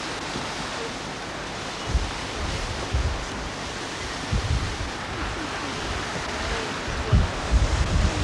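Steady outdoor wind hiss, with gusts buffeting the microphone in short low rumbles about two, three and four seconds in and more often near the end.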